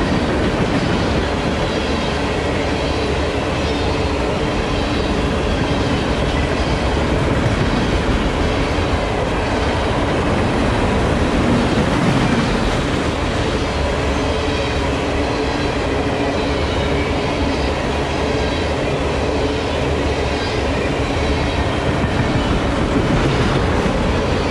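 Freight train of tank cars rolling past: the steady rumble and rattle of steel wheels on the rails, with a thin steady squeal from the wheels over it.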